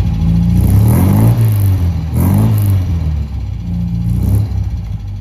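A 1971 MGB GT's engine blipped about three times through a Tourist Trophy polished stainless steel exhaust, the pitch rising and falling back toward idle between each rev.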